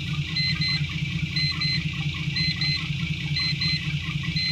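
Volvo FH truck's diesel engine idling steadily, with a high double beep repeating about once a second over it.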